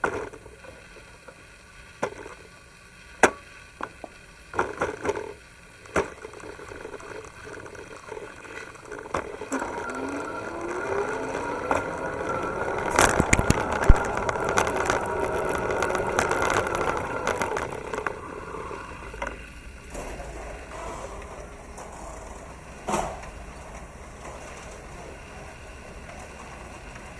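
Electric-assist bicycle moving through a concrete parking garage: scattered knocks and rattles at first, then a rising whine about ten seconds in as it gathers speed, with a louder clattering stretch, then quieter rolling with a few single knocks.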